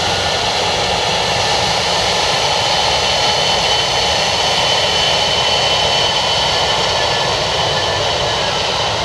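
Dassault Falcon 7X's three Pratt & Whitney Canada PW307A turbofan engines running steadily as the jet taxis, a high steady whine over a broad rush of jet noise.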